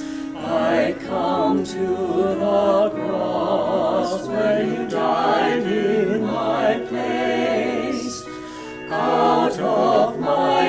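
Mixed choir of men's and women's voices singing a cappella, with sustained notes and vibrato. The singing eases briefly between phrases about eight seconds in, then comes back in full.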